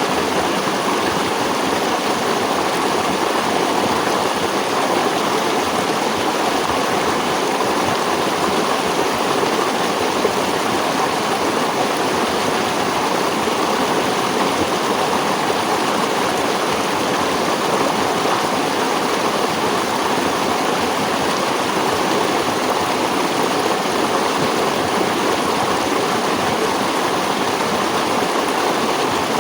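Stream water running and splashing steadily, a continuous even rush without breaks.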